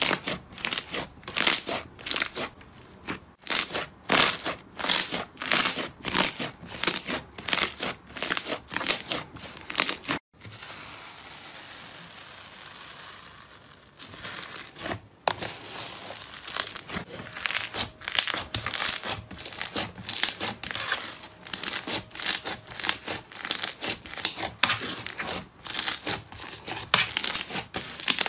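Hands kneading and pressing thick slime, giving rhythmic crackling pops about twice a second. Partway through there are a few seconds of steady hiss, then pink foam-bead slime is scraped and squeezed with denser crackling and crinkling.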